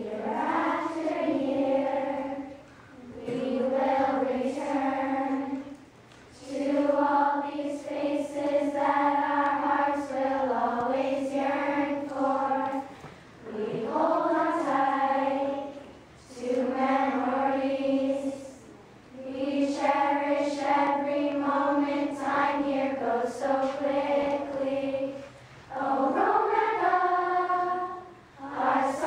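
A large group of girls singing together as a choir, in phrases of a few seconds separated by short breaths.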